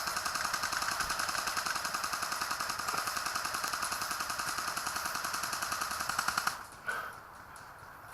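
Airsoft guns firing on full auto, a fast continuous rattle of shots that cuts off suddenly about six and a half seconds in, followed a moment later by a single sharp shot.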